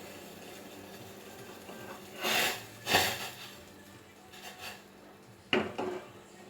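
Kitchen pots and utensils handled: two short rushing, clattering noises a couple of seconds in, a few lighter touches, then sharp metal knocks near the end, over a faint steady hum.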